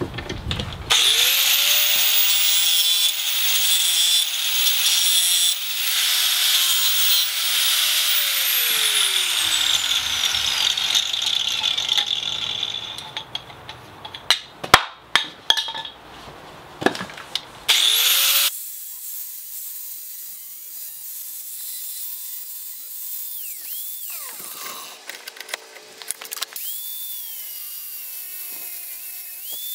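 Angle grinder cutting and grinding a steel bar clamped in a bench vise: a long stretch of loud grinding with a high whine, the motor winding down partway through, several sharp knocks in the middle, then a quieter stretch before the grinder whines up and cuts again near the end.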